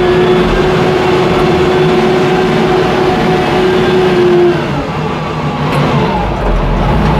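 Wheel loader's diesel engine running hard under load as the bucket pushes a pile of earth, with a steady whine over it that cuts off about four and a half seconds in, when the engine briefly eases.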